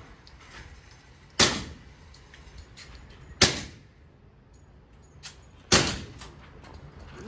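Three gunshots at an indoor shooting range, about two seconds apart, each with a short echo off the range walls.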